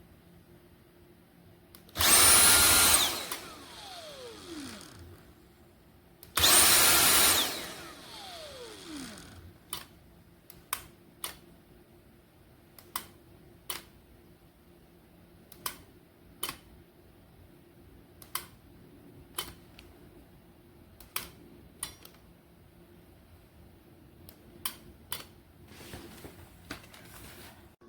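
Dyson V7 cordless stick vacuum's motor switched on twice for about a second each time, a high whine that winds down in pitch over a couple of seconds after each release of the trigger: a test run on the new replacement battery. Then a series of sharp, irregular clicks.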